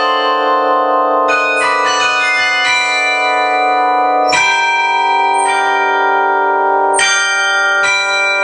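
Carillon of cast bronze tower bells (Eijsbouts / Petit & Fritsen) playing a melody, several bells struck at once for each note and left ringing into one another.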